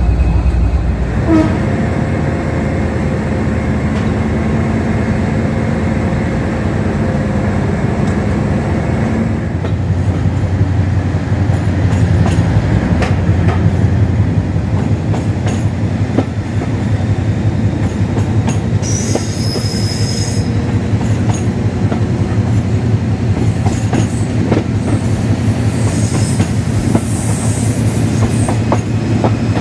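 Class 56 diesel locomotive's 16-cylinder Ruston Paxman engine running with a steady low throb, heard from a carriage behind it. The engine note shifts about a third of the way in, wheels click over rail joints, and there is a brief high-pitched squeal about two-thirds of the way through.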